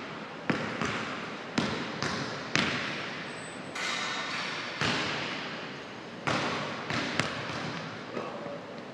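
Basketballs bouncing on a hardwood gym floor: about seven sharp separate bounces at uneven gaps of around a second, each ringing out in the echo of a large gym.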